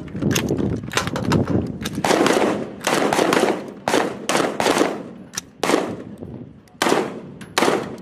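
Rifle gunfire: a string of loud single shots, roughly one every half second to a second, each followed by a short ringing tail.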